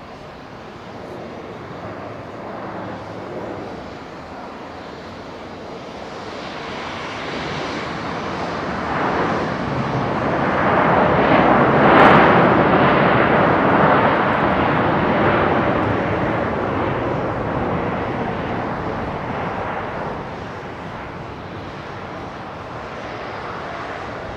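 Jet airliner's engines passing close by, the roar swelling to a peak about halfway through and then fading away.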